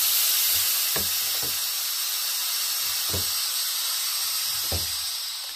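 Compressed air hissing loudly and steadily through the valves and hoses of a home-made pneumatic bar-clamp rig as its air cylinders are actuated, fading away near the end. A few dull knocks sound over the hiss.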